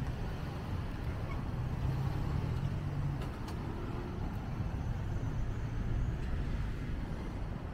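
City street traffic: cars and vans driving past on the road, a steady low hum of engines and tyres, louder as one vehicle goes by about two to three seconds in.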